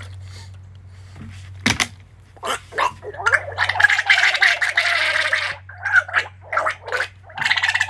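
A man gargling a mouthful of water with his head tilted back. It goes in long bubbling stretches starting about three seconds in, breaks off briefly, comes back in short bursts, then picks up again near the end.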